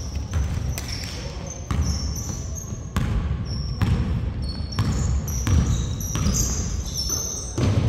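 Basketball dribbled on a hardwood gym floor, with a sharp bounce about every two-thirds of a second, and short high-pitched squeaks of sneakers on the boards in between.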